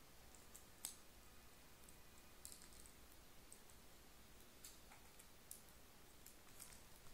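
Near silence broken by a few faint, scattered clicks: a plastic action figure and its packaging being handled.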